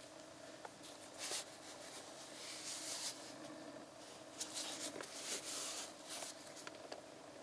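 Gloved hands handling and turning a plastic motor-oil bottle: faint rubbing and scuffing a few times over a steady low hum.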